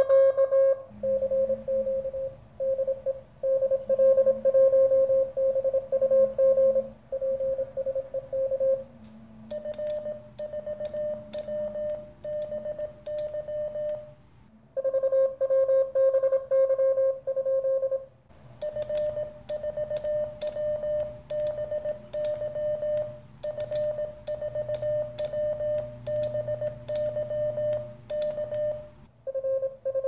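Morse code (CW) tones from a Weber Soda Pop transceiver's speaker, a single tone keyed on and off in dits and dahs during an on-air exchange. It comes in alternating stretches at two slightly different pitches, with short gaps between them.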